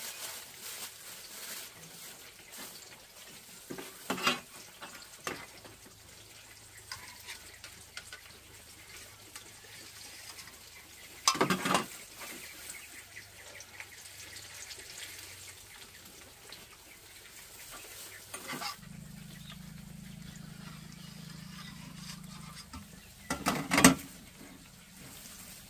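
Kitchen work: stirring, with a few sharp knocks and clinks of utensils on cookware and a light sizzle at times.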